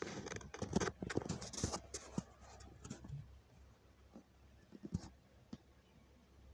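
A quick flurry of knocks and clattering thumps over the first two seconds, then a few scattered single knocks.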